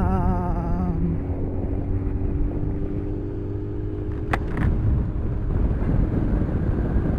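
Motorcycle engine running at a steady cruising pace with a constant drone. A brief wavering tone sounds in the first second, and a single sharp click comes about four seconds in.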